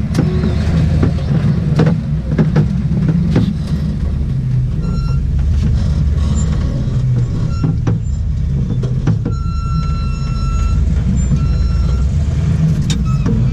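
Range Rover V8 engine running as the competition 4x4 crawls over a rough dirt course, heard from inside the cab, with scattered knocks and rattles. A high electronic beep sounds several times in the second half, once held for about a second.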